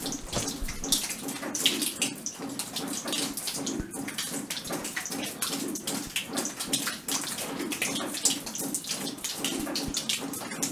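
Water splashing and trickling from inside an old mine tunnel, a continuous run of irregular drips and splashes. It sounds like more than dripping, and the listeners liken it to a working pump, though they take it to be water.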